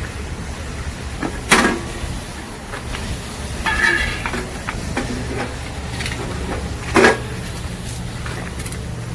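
Metal clanks and knocks from the threshing drum and screen parts of a Yanmar combine being handled and fitted: a sharp knock about a second and a half in, a clattering, ringing rattle around four seconds, and another sharp knock near seven seconds, over a steady low hum.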